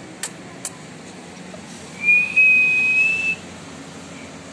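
Two sharp clicks, then a person whistling one steady high note for just over a second, rising slightly toward the end, to call a German shepherd puppy.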